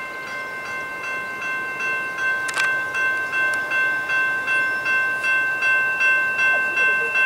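Railroad grade crossing bell ringing steadily, about two to three strokes a second, getting louder about two seconds in: the crossing signals are warning of an approaching train.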